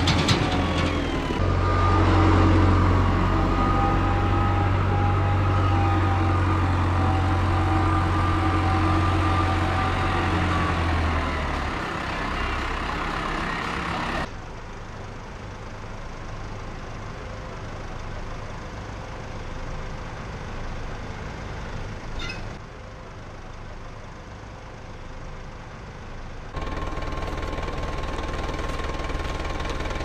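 Tractor diesel engine working hard with a higher whine over it as the front loader pushes silage, easing off after about ten seconds. After that an engine runs quieter and further off, and near the end a tractor engine runs steadily close by.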